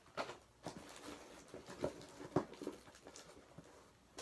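Snack packaging being handled: a few short taps and crinkles, the sharpest about two and a half seconds in.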